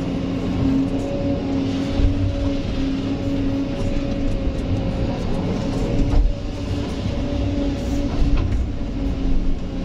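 Kobelco SK200 hydraulic excavator running under load, heard from inside the cab: a steady engine and hydraulic hum with low thuds now and then as the bucket swings, dumps soil and rock into a dump truck, and goes back to dig.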